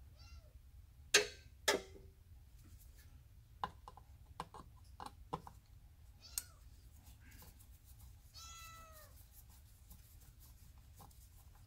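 A house cat meowing: a faint short meow right at the start and a clearer, drawn-out meow about eight and a half seconds in. A couple of sharp clicks about a second in are the loudest sounds, with lighter taps scattered through the rest.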